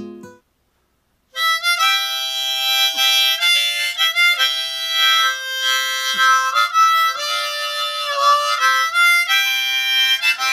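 Diatonic harmonica playing a folk-style melody, with several reeds sounding together in chords. It starts about a second and a half in, after the last of an acoustic guitar strum and a short silence.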